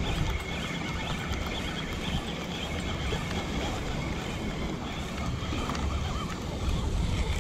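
Wind buffeting the microphone in a steady, uneven rumble, over a constant rush of open water.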